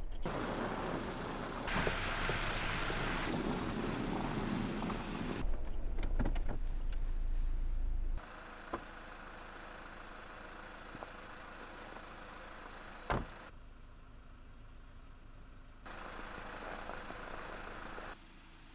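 Cab of a Kia truck driving over snow: steady engine and tyre rumble. Then it is quieter, with one sharp thump of a vehicle door shutting about two-thirds of the way through.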